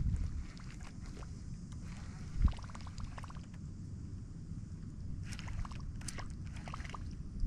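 Water sloshing and lapping against a kayak hull, with one sharp knock about two and a half seconds in and a few quick clicks and splashes past the middle.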